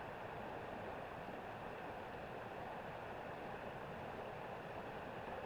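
River water flowing, a steady, even rushing with no breaks or changes.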